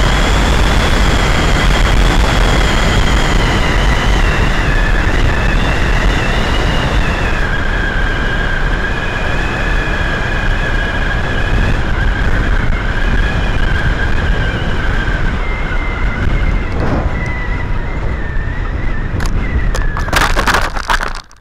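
Easystar II RC plane's electric motor and propeller whining steadily over wind rush on its onboard camera, the pitch dipping slightly about a third of the way in. Near the end come a few knocks and scrapes as the plane touches down on rough ground, and then the sound drops away abruptly.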